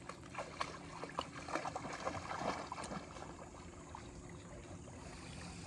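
Light splashing of shallow river water as a pit bull wades after a fish, with scattered small splashes in the first three seconds that then die down.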